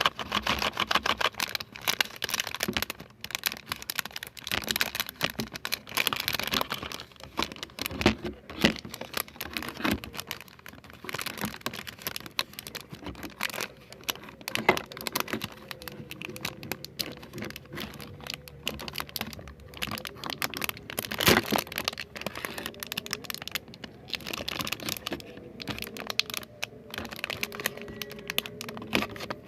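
Close-up ASMR trigger sounds: irregular crinkling, tapping and clicking near the microphone, with one sharp crack about 21 seconds in.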